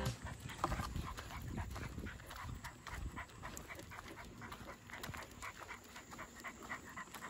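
A dog panting in quick, short breaths.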